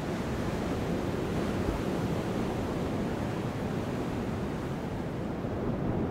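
Surf washing up onto a sandy beach in a steady rush, with wind buffeting the microphone.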